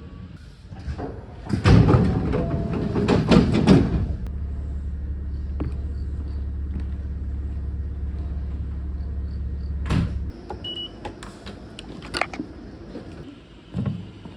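Public transport vehicle at a stop: a loud clattering, like doors sliding open, for a couple of seconds, then a steady low hum that cuts off suddenly about ten seconds in, followed by a few sharp knocks.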